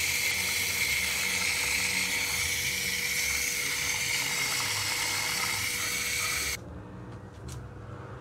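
Tap water pouring from an outdoor faucet into a stainless steel bowl of sprat fish as they are rinsed by hand, a steady hiss that stops suddenly about six and a half seconds in.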